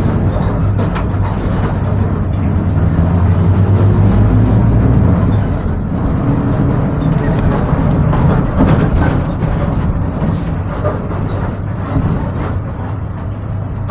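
Volksbus/MAN 17-230 OD city bus heard from on board while driving: a steady engine drone that eases off about five and a half seconds in, with body rattles and knocks throughout.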